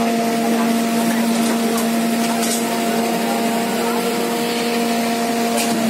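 Fire truck engine running steadily at a constant speed while it works the turntable ladder and water pump, a steady hum over a hiss of background noise.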